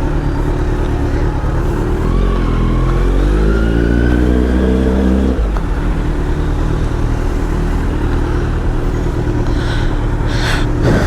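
Kawasaki Z900 inline-four with a Leo Vince aftermarket exhaust, revving hard under acceleration. Its pitch climbs for about three seconds, then drops abruptly as the throttle is shut or a gear is changed, and it settles into steady running with road and wind noise.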